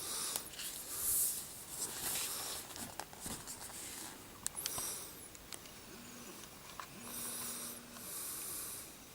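Heavy breathing close to the microphone: a string of hissing breaths, each lasting about half a second to a second, some with a low wheezy hum in them.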